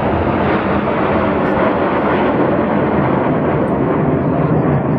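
Jet noise from a formation of Red Arrows BAE Hawk jets flying past: the loud, steady sound of their turbofan engines, even in level throughout.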